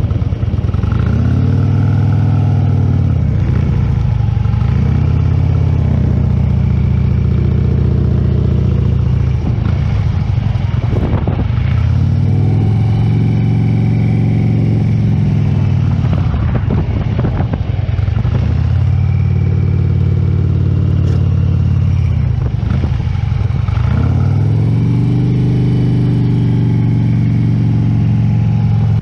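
Large touring motorcycle's engine running in first gear at walking-to-jogging pace through tight turns. The engine note rises and falls every few seconds as the rider works the throttle and the clutch friction zone, heard close up from the rider's helmet.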